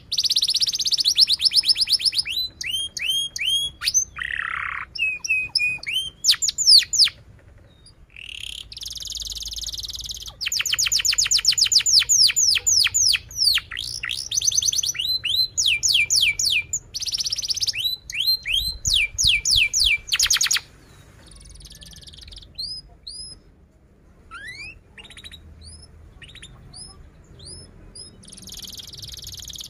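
Domestic canary singing a long song of rapid trills: runs of fast repeated, high sweeping notes, switching from one trill type to the next. About two-thirds of the way in the song drops to a quieter stretch of scattered single chirps, and the full trills return at the very end.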